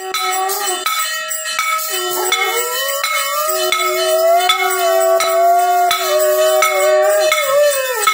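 A blown horn sounding long, wavering held notes during temple aarti, over a metal bell struck at a steady beat about every two-thirds of a second.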